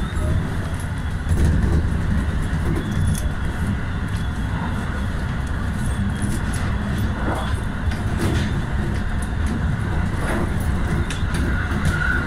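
Electric train running along the line, heard from the front of the cab: a steady low rumble of wheels on rail, with a few scattered clicks and knocks.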